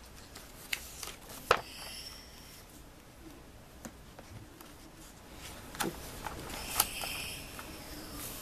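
Pages of a large picture book being turned and pressed flat: paper rustling with several sharp taps and slaps of the pages, the loudest about a second and a half in.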